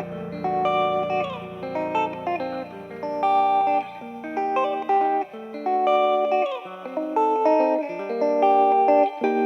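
Background chillhop music with a plucked electric guitar melody.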